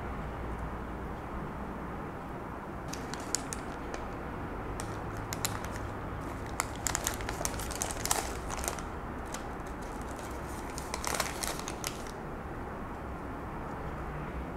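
Paper sleeve of curly fries crinkling as hands handle it, in scattered crackles that start about three seconds in and stop a couple of seconds before the end. A steady low hum lies under it.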